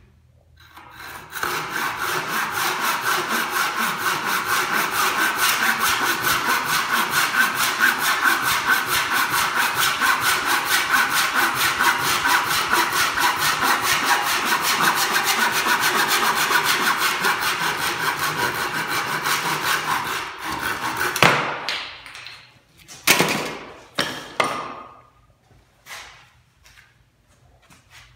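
Hand saw cutting oak in quick, even back-and-forth strokes, stopping about twenty seconds in. A few sharp knocks of wood follow.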